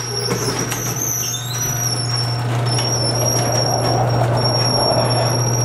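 Sectional garage door opening on an electric opener: a steady motor hum with the door's rolling rumble, and thin high squeals from the rollers and hinges coming and going.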